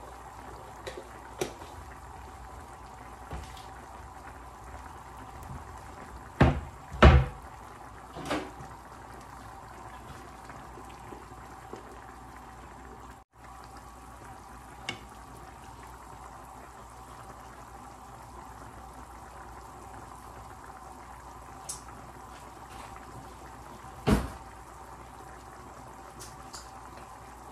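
Curry broth simmering in a pan with lamb shanks, a steady bubbling hiss. A few sharp knocks break through it, two close together about six and seven seconds in (the loudest) and one more near the end.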